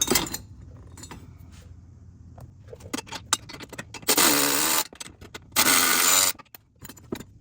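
Light clinks of metal hardware, then a handheld power tool run twice in short bursts of under a second each, driving bolts.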